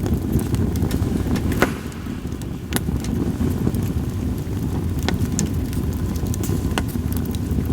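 Campfire of split sawtooth oak (kunugi) firewood burning, with a few sharp crackling pops, about four, over a steady low rumble.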